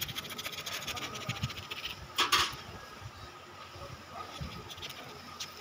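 A knife scraping the fibrous pulp of a ripe palmyra palm fruit: a fast, rasping scrape that fades out about two seconds in, then one short, louder rasp, then only faint scraping.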